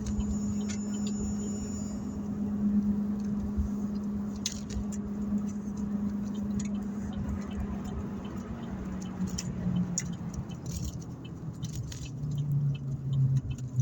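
Steady low hum of a car heard inside the cabin, dropping lower in pitch near the end, with scattered small clicks and smacks of someone eating.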